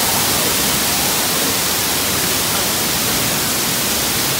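Loud, steady rush of a man-made waterfall pouring down artificial rockwork close by, an even hiss with no breaks.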